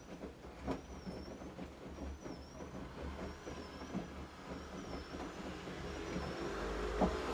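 Washing machine drum turning with an abnormal noise: a short high squeak that dips and rises in pitch about once a second, over irregular rattling knocks. Near the end a low hum grows louder.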